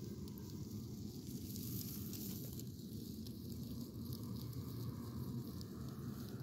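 Distant powered paraglider's (paramotor's) engine droning steadily, with wind rumbling on the microphone.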